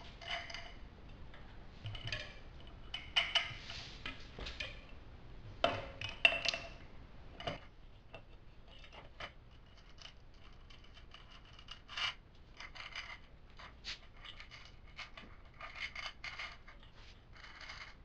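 Irregular light metallic clinks and scrapes as a hub-motor front wheel is fitted into a bicycle fork and washers and an axle nut are put onto the axle by hand, with a few louder clinks in the first half.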